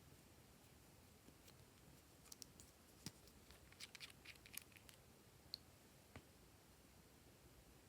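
Glossy slime being mixed by hand, faint: scattered small sticky clicks and pops, with a quick cluster of them about halfway through.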